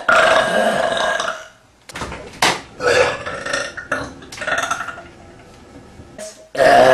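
A woman burping repeatedly: one long, loud burp, then a string of shorter burps, and another long burp beginning near the end.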